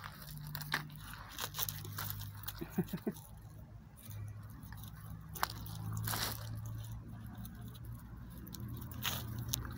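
A dog crunching and chewing bones, with irregular sharp cracks.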